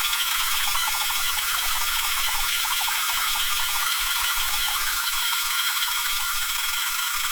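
Boat rocking in water, heard as a steady, dense crackle of small creaks and ticks, mostly high-pitched with almost no low end.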